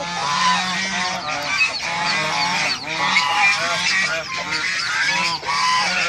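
A flock of domestic geese honking without pause, many calls overlapping each other.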